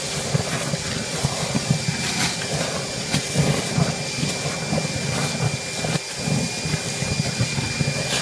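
Roll n Vac vacuum extractor running steadily with a constant high whine and hiss, its hose sucking up thick wet mud with irregular low slurping and occasional clicks of debris.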